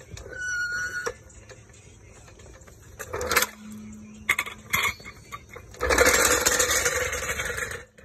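Car jack being let down and worked out from under the car: a sharp clank about three seconds in, a steady low squeak lasting about a second and a half with a few knocks, then about two seconds of loud scraping near the end.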